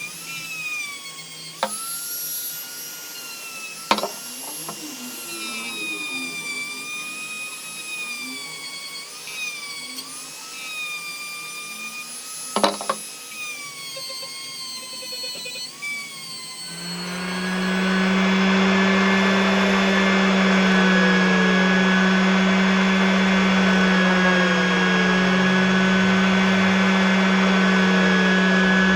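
Electric power tool motors at work. A high-pitched whine wavers up and down in pitch as if under changing load, with a few sharp clicks. About two-thirds of the way through, a louder motor with a deep steady hum starts up and runs evenly.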